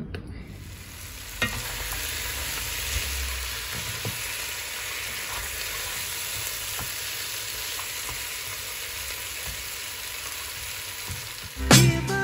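Peppers and lamb frying in a pan, a steady sizzle with one light knock about a second and a half in. Music starts just before the end.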